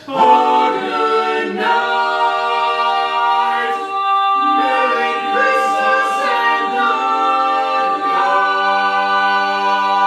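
Male vocal quartet singing a cappella in close harmony, holding sustained chords. There are short breaks about four and eight seconds in, then a long held chord near the end.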